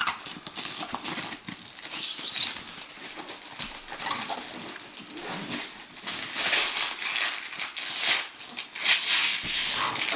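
Wrapping paper being torn and crumpled off a gift box in irregular crackly rips. The ripping grows louder and busier about two-thirds of the way through.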